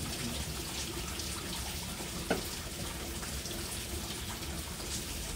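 Fluid from a Volvo double-decker bus engine draining steadily out onto the floor, a continuous running-water sound. A single knock about two seconds in.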